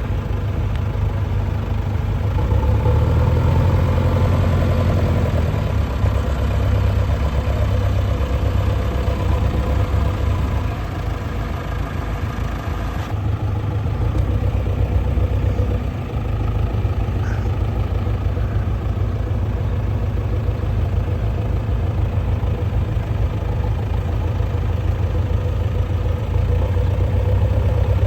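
Backhoe loader's diesel engine running steadily with a low rumble, swelling louder a few seconds in.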